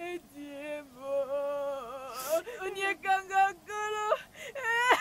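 A woman wailing and sobbing in grief: a string of long, wavering cries with short breaks between them, some rising to a high pitch.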